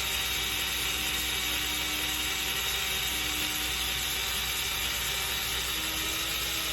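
Cordless drill running at a steady speed, spinning a Norvise auto-bobbin spool to wind fly-tying thread onto it: an even whir with a faint steady whine.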